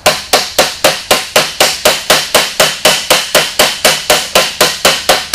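The plastic handle end of a 3/8 wrench tapping a high-pressure fuel pump's spring-retainer tappet down through a steel install tool held in a vise: a steady run of sharp blows, about four a second. Each blow seats the tappet further into the retainer so the piston and spring stay together.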